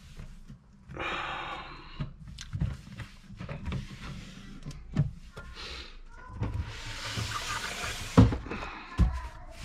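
Household cleaning noises: wiping and rubbing with scattered knocks of objects being moved on a desk. A longer hissing stretch in the last third ends in the loudest knock, about eight seconds in.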